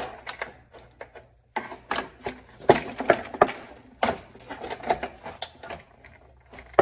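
Plastic engine undercover being pried off its mounting clips with a flat-blade screwdriver: a string of irregular plastic clicks, knocks and rattles.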